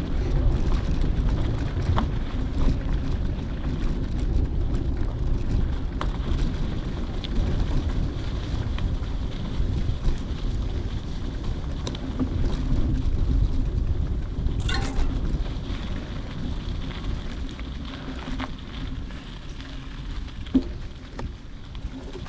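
Wind buffeting the microphone, a steady low rumble, with a few scattered clicks.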